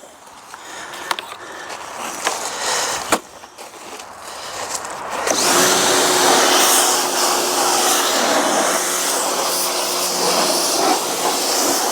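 A few handling clicks and knocks, then about five seconds in an electric pressure washer starts up: a steady motor hum with the loud hiss of its water jet spraying.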